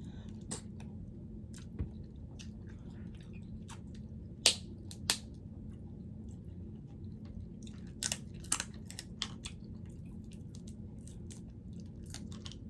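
Close-miked chewing of noodles, with scattered sharp wet mouth clicks and smacks, the loudest two about four and a half and five seconds in, and a cluster near eight seconds.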